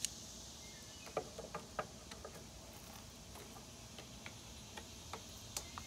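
Oil filter pliers being fitted and gripped on a small engine's spin-on oil filter: scattered light metallic clicks and taps, about a dozen irregularly spaced, with a sharper one right at the start, over a faint steady high hiss.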